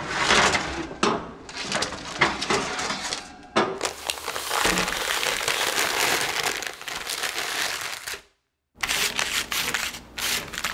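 Baking parchment crinkling and rustling as a sheet of baked cookies is handled, then, after a brief break, a quick run of light taps and clicks as cookies are picked up and set down on a wire cooling rack.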